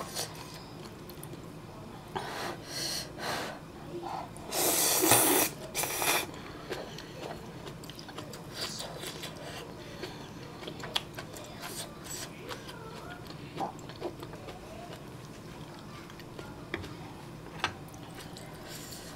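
Ramen noodles being slurped in a few short noisy pulls, the loudest about five seconds in, followed by quiet chewing with scattered small clicks.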